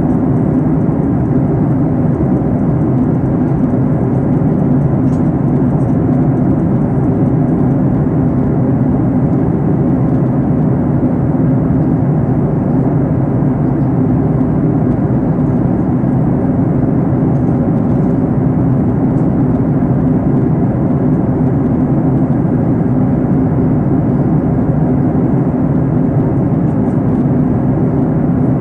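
Steady in-cabin drone of a Boeing 737 MAX 9 in flight: the CFM LEAP-1B engines and the rush of air past the fuselage make a loud, even, deep hum with no change.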